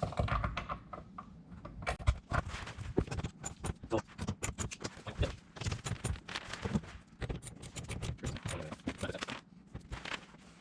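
Hand ratchet clicking in quick, irregular runs with light knocks of tool on metal, tightening the tonneau cover's bed-rail clamp bolts.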